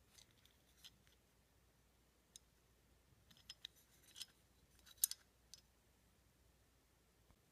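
Faint handling noise of a Sig Sauer P226 pistol frame and its small internal parts: scattered light clicks and taps, the loudest about five seconds in.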